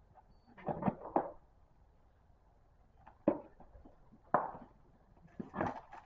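Toys and small objects being handled and set down: a quick cluster of light knocks and rustles about a second in, two single sharp knocks in the middle, and more clattering near the end.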